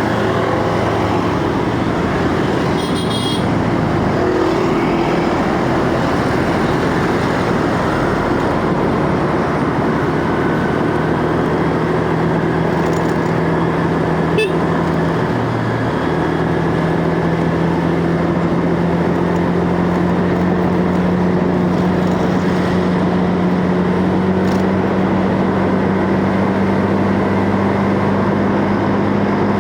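Motorcycle engine running steadily while under way, with a constant rush of wind and road noise; the engine note climbs slowly over the second half. There is a brief high-pitched beep about three seconds in.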